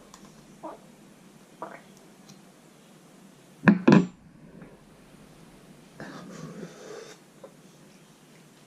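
Small clicks and quiet handling and mouth sounds of someone tasting a spoonful of barbecue sauce. Two loud, sharp sounds come close together about three and a half seconds in.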